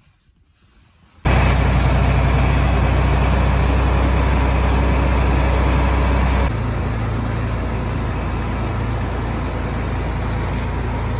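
John Deere tractor engine running steadily as the tractor drives along. It starts abruptly about a second in, and its tone shifts slightly and gets a little quieter about six seconds in.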